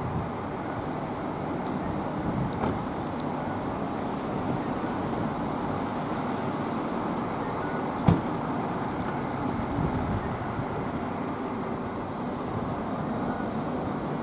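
Street traffic noise from cars passing on a city road, a steady rumble with one sharp knock about eight seconds in.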